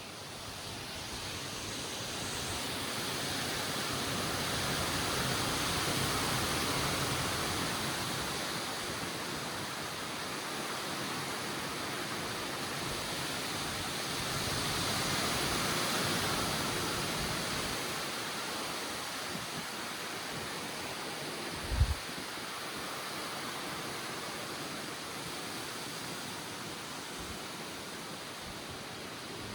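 Severe thunderstorm wind and rain: a steady rushing that swells and eases twice. A single brief low thump comes a bit past two-thirds of the way through.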